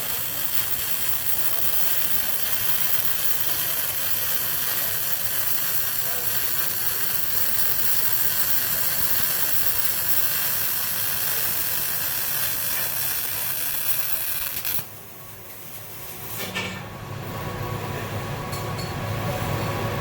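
MIG welding arc running a bead on a plate: a steady hissing crackle that stops abruptly about three-quarters of the way through, leaving a quieter low hum.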